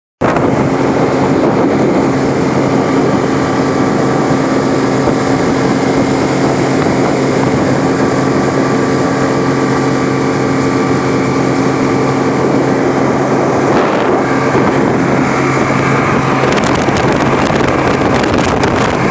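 Yamaha 40 hp four-stroke outboard motor running steadily, with wind noise on the microphone. The engine note shifts briefly about fourteen seconds in.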